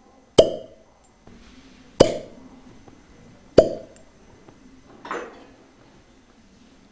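Glass cupping cups popping onto the skin of a patient's back as the flame-heated vacuum pulls them on, three sharp pops with a brief glassy ring about a second and a half apart. A softer, fainter sound follows about five seconds in.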